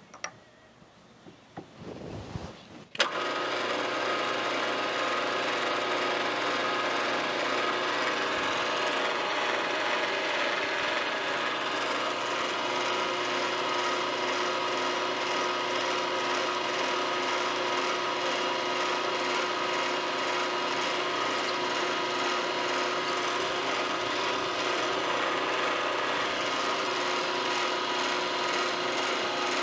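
A few light clicks as the drill chuck is handled, then about three seconds in a milling machine's spindle motor switches on and runs steadily, a hum of several fixed tones, while a small 3/16-inch drill is fed through the part.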